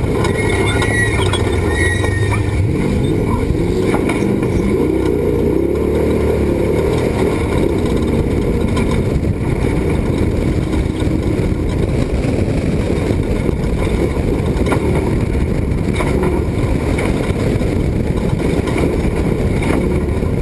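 Off-road race truck running at speed: steady, loud engine and road noise with no let-up.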